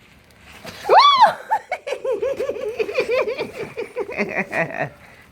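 A child squeals about a second in, then giggles in a quick, high-pitched run of short laughs, about five or six a second.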